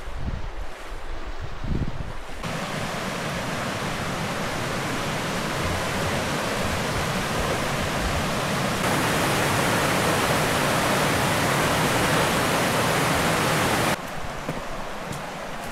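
Steady rush of river water, an even hiss that grows louder about nine seconds in and cuts off abruptly near the end. The first couple of seconds hold low wind buffeting on the microphone.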